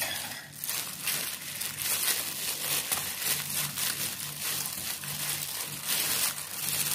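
Thin plastic food-prep gloves crinkling and rustling in quick, irregular strokes as hands massage marinade into raw chicken thighs.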